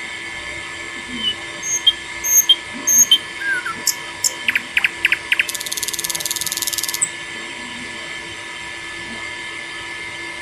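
Birds chirping in short sharp calls, with a rapid buzzing trill for about a second and a half near the middle, over a steady high, insect-like hum.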